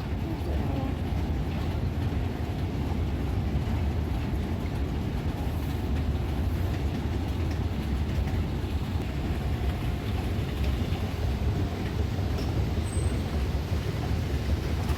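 Steady low rumble of an airliner cabin, the constant engine and air noise heard inside a passenger jet.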